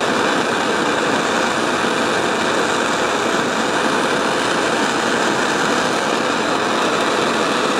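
Propane torch flame burning with a steady hiss while heating a copper pipe joint for soldering.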